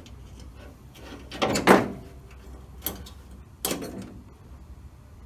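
Metal clanks and rattles from inside a car door shell as door latch parts are loosened: one louder clatter about one and a half seconds in, then two shorter knocks.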